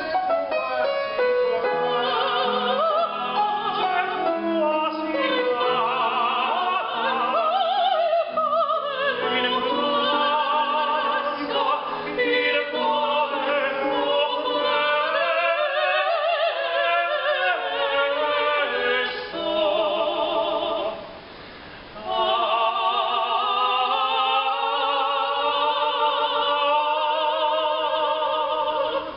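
Operatic singing with wide vibrato to piano accompaniment, breaking off briefly about three-quarters of the way through before the voice resumes.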